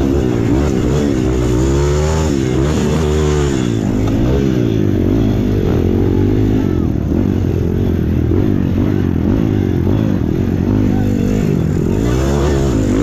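Dirt bike engine heard up close from the bike, revving hard with the pitch rising and falling again and again as the throttle is worked over the track.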